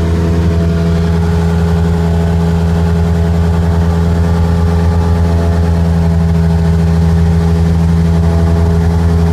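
Cessna 150's four-cylinder piston engine and propeller droning steadily in flight, heard from inside the cabin, its pitch holding constant.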